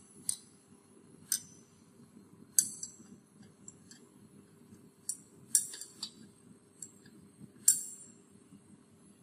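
Stirring rod clinking against a glass beaker, about seven sharp ringing clinks at uneven intervals, while beeswax melts into liquid paraffin on a water bath. A faint steady low hum runs underneath.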